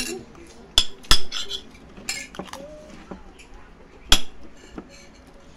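Metal spoons clinking against ceramic plates and bowls: a few sharp clinks, the loudest about a second in and again about four seconds in.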